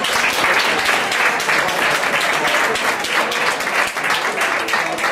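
A group of people applauding, dense, steady clapping throughout.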